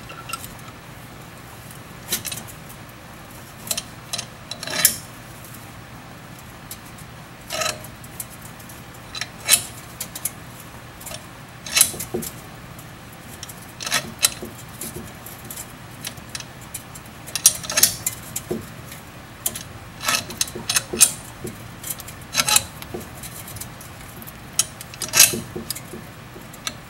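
Irregular metal clinks and taps of hand tools and brake parts being handled while a C-clamp and an old brake pad press the brake caliper piston back, over a faint steady low hum.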